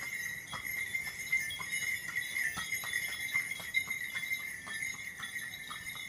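Bells on a walking pony's harness jingling in a steady rhythm, about two strikes a second, with each step, and its hooves clopping on the road. A steady high-pitched ringing drone runs underneath.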